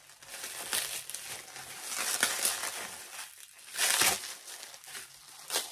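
Plastic bubble wrap crinkling and rustling as hands unwrap it, in irregular bursts, loudest about two and four seconds in.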